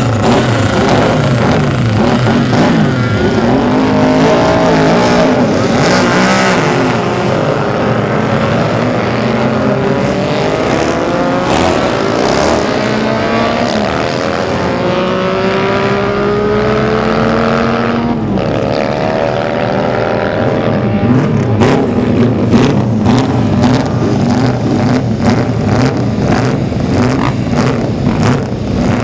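Racing motorcycle engines running hard. Midway, one engine's pitch climbs steadily, drops sharply once, as at a gear change, then climbs again, with a busy rattling mix of engine sound near the end.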